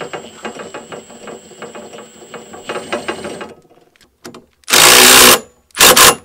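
Cordless impact driver with a socket driving a bolt: a fast rattle under a steady high motor whine for about three and a half seconds, then two short, very loud bursts of hammering near the end as the bolt is run down tight.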